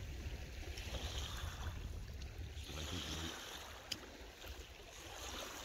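Small waves lapping on a pebble shore, a steady wash of water over stones. Wind rumbles on the microphone until about three seconds in, and there is a single faint click near the end.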